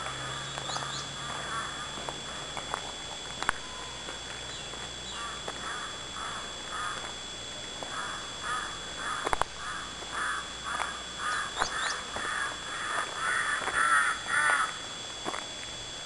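A crow cawing over and over, a series of short harsh calls about two a second that grows louder near the end.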